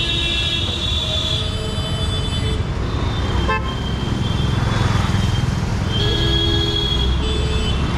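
Busy street traffic: a steady engine rumble with vehicle horns honking. One horn is held for the first couple of seconds, and more honks come in the second half.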